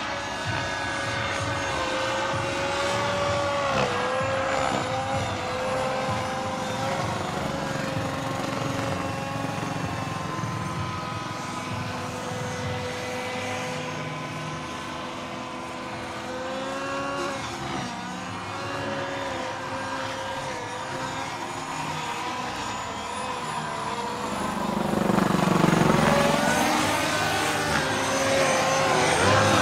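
Radio-controlled scale Bell 206 JetRanger helicopter in flight: its model gas turbine whines steadily over the rotor noise, the pitch drifting slightly. It gets louder with a sweeping whoosh near the end as it passes closer.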